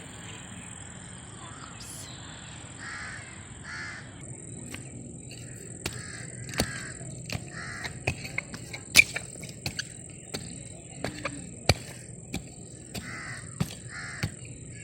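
Crows cawing repeatedly in short calls, over a steady high-pitched thin tone; from a few seconds in, scattered sharp clicks and taps.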